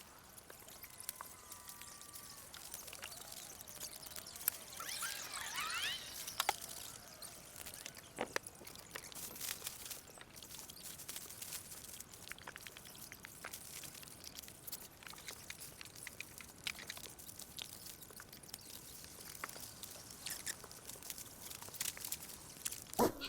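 Scattered crinkling rustles and clicks of a tent being taken down and packed. The nylon fabric sounds crispy, like crunching paper. A bird chirps a few quick notes about five seconds in.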